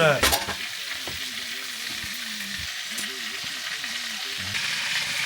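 Meat cutlets sizzling as they fry in oil in a pan, a steady hissing that grows louder about four and a half seconds in.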